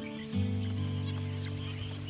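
Documentary background music: a sustained chord that shifts to a new, fuller chord about a third of a second in and is held.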